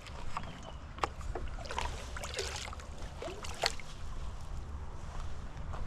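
A few short, bending calls from chickens in the coop, over scattered clicks and knocks and a steady low rumble.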